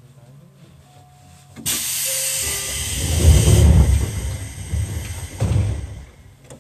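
Sudden loud air hiss from a Seibu 101-series train's pneumatic door engines about a second and a half in, lasting about two seconds, as the passenger doors slide shut, followed by a low rumble and a thump near the end as they close.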